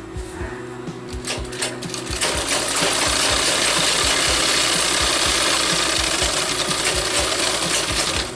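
Sewing machine stitching a seam in cotton fabric: a few slow needle clicks as it starts, then about two seconds in it speeds up to a fast, steady run that eases off near the end.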